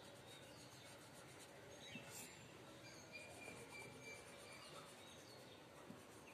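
Near silence: faint background hiss with a few faint, short high chirps, one of them held for about a second midway.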